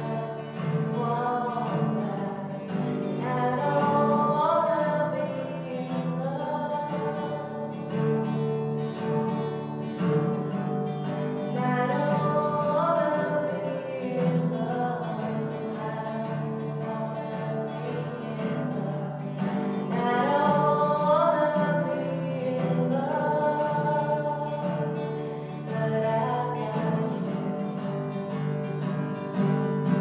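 A woman singing with her own acoustic guitar accompaniment.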